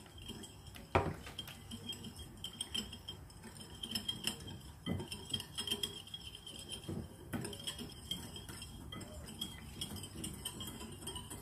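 Wire whisk beating a runny oil-and-spice paste in a ceramic bowl, its wires clinking and scraping against the bowl in quick, irregular taps, with one louder knock about a second in.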